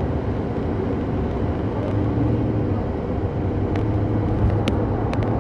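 A moving road vehicle heard from inside: a steady low engine hum and road rumble, with several short clicks in the last second and a half.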